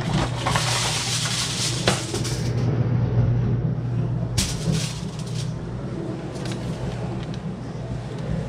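Aluminum foil pulled from its roll and crinkling as the sheet is torn off and spread out, over a steady low hum. A single sharp click about four seconds in.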